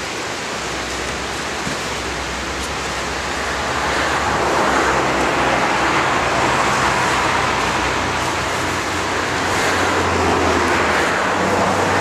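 Steady rushing of a fast mountain creek's rapids, swelling louder about four seconds in.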